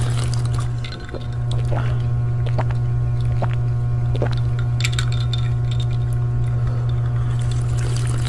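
Drinking through a straw: wet slurping and liquid sounds in short separate bits, over a strong steady low hum.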